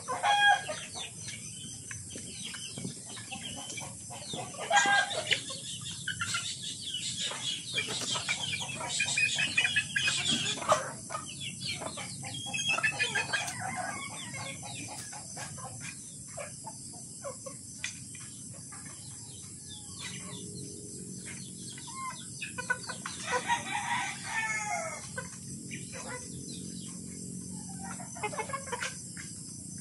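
Kelso gamecocks crowing several times, with clucking between the crows.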